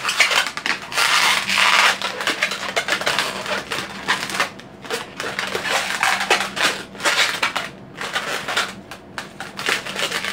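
Latex long modelling balloon rubbing and squeaking under the hands as it is squeezed and twisted into shape: a dense run of short crinkly sounds, thinning out after about four seconds.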